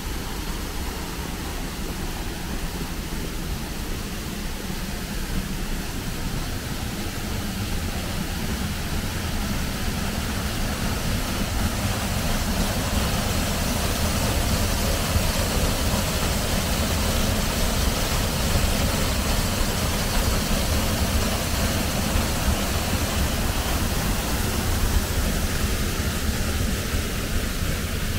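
Small jungle waterfall pouring down a rock face into a pool: a steady rushing of water that grows louder through the middle and eases near the end.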